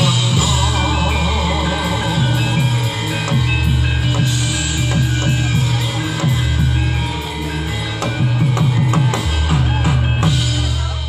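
Loud live music from a kuda lumping (jaranan) troupe's band, with quick drum strikes over deep bass notes held about three seconds each.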